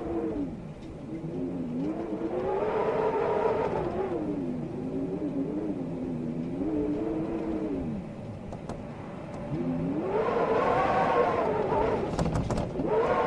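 Storm wind howling in gusts: a wavering, whistling tone that slides up and down in pitch over a rush of noise. It swells twice, around the third second and again from about ten seconds in.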